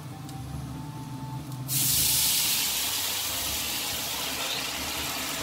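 A cup of red wine poured into a hot cast-iron skillet of browned seitan chunks, sizzling and hissing as it hits the pan. The hiss starts suddenly a little under two seconds in, at its loudest at once, then slowly dies down as the pan is deglazed.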